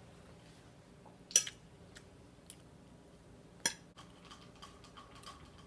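Metal fork clinking against a plate while eating: a few sharp clinks, the loudest about a second and a half in, another a little before four seconds.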